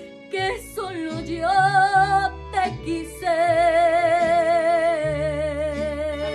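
A woman singing over an instrumental backing with steady bass notes: a few short sung notes, then, about three seconds in, one long held note with wide vibrato.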